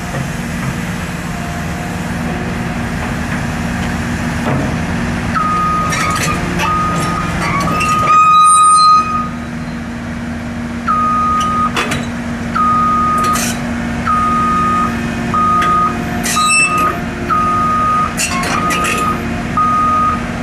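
Caterpillar 319D LN hydraulic excavator's diesel engine running steadily as the machine tracks up a steel ramp. From about five seconds in its travel alarm beeps about once a second. Scattered sharp clanks and knocks come through, and a loud rush of noise comes about eight seconds in.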